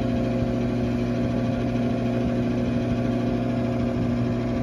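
An Intertherm mobile home furnace's draft inducer motor running with a steady, even hum.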